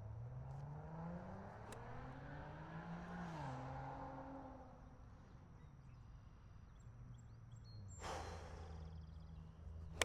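An engine running nearby, rising steadily in pitch for about three seconds, then dropping and fading out. About eight seconds in there is a brief whoosh, and a sharp click comes right at the end.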